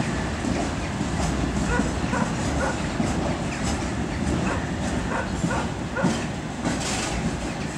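TEP70BS diesel locomotive running light through a station: a steady low rumble with wheels clacking over rail joints. Brief high-pitched cries come every half second or so.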